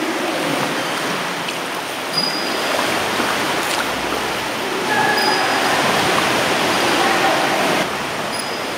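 Steady rush of moving sea water around a kayak, louder for about three seconds partway through.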